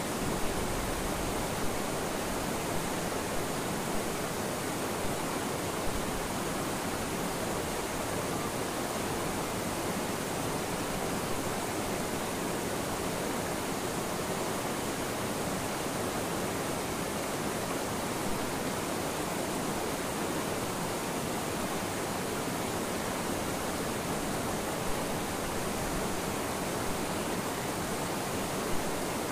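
Steady rush of a rocky forest river's flowing water, an even hiss with no change in level, with a few faint ticks here and there.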